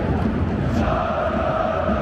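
Stadium crowd of football supporters singing a chant together over the general crowd noise. A held sung note swells up out of the crowd about a second in and carries on.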